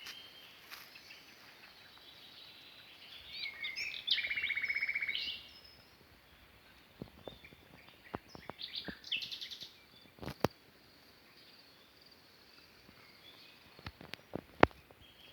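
Small songbirds singing at dusk: short chirping phrases, with a loud, fast buzzy trill about four seconds in and another pulsing phrase near the middle. A few sharp clicks or knocks cut in near the end, one of them the loudest sound in the stretch.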